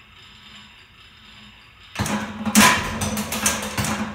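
Schleicher Bros Otto-Langen atmospheric free-piston engine, run by its hit-and-miss governor: for about two seconds it coasts with only a low hum, then it fires with a sudden bang, followed by loud, irregular clattering from its piston rack and ratchet gearing.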